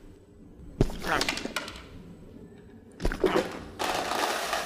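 Two sharp knocks about a second apart, then two seconds apart, each followed by a short voice-like cry. Near the end comes a steady rattling rush of dry cat kibble pouring out of an automatic pet feeder's dispenser.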